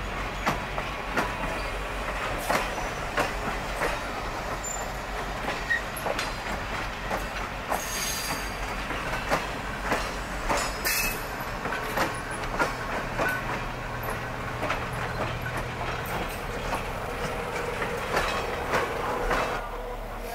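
Passenger railroad coaches rolling past on the track, their wheels and trucks giving a steady run of irregular clicks and clunks. Brief high-pitched wheel squeals come about eight seconds in and again about three seconds later.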